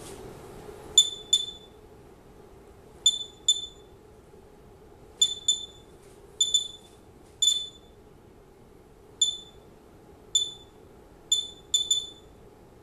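Homemade Geiger counter's piezo buzzer giving short, high-pitched beeps at random intervals, often two close together, about fourteen in all. Each beep marks an ionizing particle detected by the Geiger–Müller tube as it counts the radioactivity of a kitchen-dust sample.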